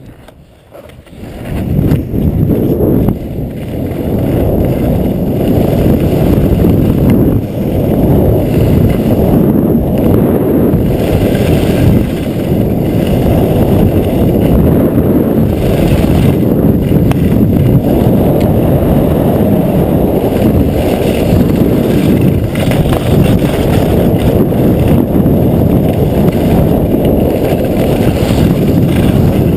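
Wind buffeting a GoPro action camera's microphone with the hiss and scrape of skis running over firm snow during a downhill run. It is loud and rumbling, and it builds up over the first two seconds as the skier gains speed.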